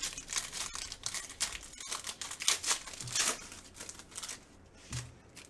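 Crinkling and rustling as trading-card packs and cards are handled, a run of short scratchy strokes that thins out near the end.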